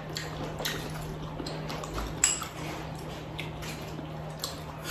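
Chopsticks clicking lightly against porcelain bowls and plates, scattered faint clicks with one sharper one about two seconds in, over a steady low hum.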